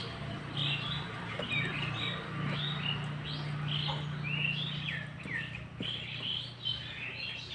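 Small birds chirping busily: many short chirps and quick falling calls overlapping one another, over a steady low hum.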